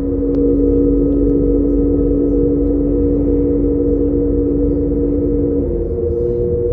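Passenger train running along the line, heard from inside the carriage: a steady low rumble from the wheels and track with a droning hum of several steady tones. One of the tones stops about five and a half seconds in.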